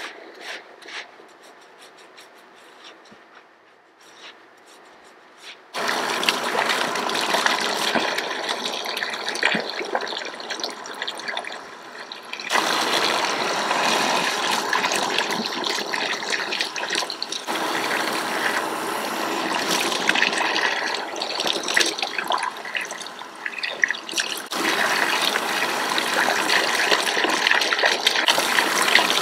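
Water running from a shower sprayer over hair into a shampoo basin during a hair rinse, starting about six seconds in after a few quiet seconds of faint clicks. The flow steps louder and softer a few times as the water is moved.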